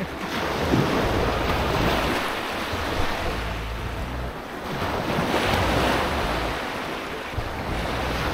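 Waves washing ashore in swells that rise and fall every few seconds, with wind rumbling on the microphone.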